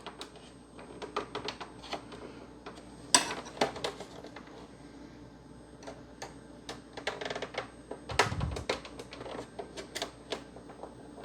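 Plastic case clips and a metal pry tool clicking and snapping irregularly as the bottom shell of an Xbox One S is pried apart, with a sharper snap about three seconds in and a dull thump later on.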